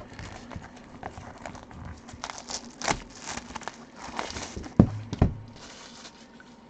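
Plastic shrink wrap being torn and crinkled off a trading-card box, in irregular crackling bursts. Two short dull thumps a little under five seconds in, as the box is handled.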